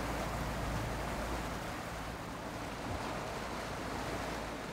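Sea water rushing and splashing past a sailboat's hull and churning in its wake as it motors and sails along, with wind on the microphone. A low steady hum fades out about two seconds in.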